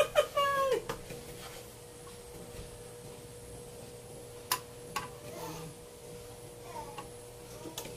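Sewing machine at rest: a faint steady hum with a few light clicks, the motor not running.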